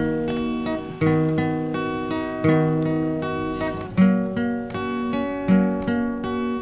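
Background music: acoustic guitar strumming chords, with a fresh strum about every second and a half.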